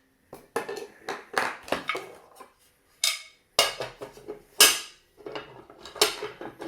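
Hard parts being handled and fitted together by hand: a string of sharp clicks and clacks, with a few abrupt gaps of dead silence between them.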